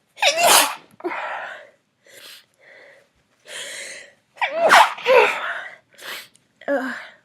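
A woman sneezing twice, about four seconds apart, with sharp breaths in and out between, which she thinks is a cold coming on rather than allergies.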